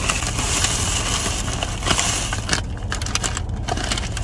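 A plastic takeaway bag rustling and crinkling as it is handled and opened, made of many quick crackles. A low steady hum of the car cabin runs underneath.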